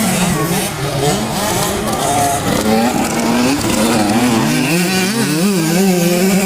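Several 65cc two-stroke motocross bikes racing, their engines revving up and down with overlapping, wavering pitches.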